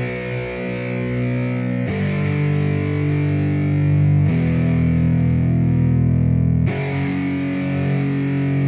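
Background music: distorted electric guitar playing held chords that change about every two and a half seconds.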